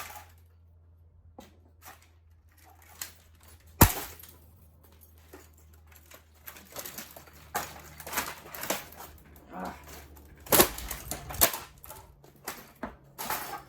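Knocks and clatter of the broken parts of a smashed Macintosh 512K being handled and pulled apart. There is one sharp knock about four seconds in, then denser rattling and clinking from about halfway on.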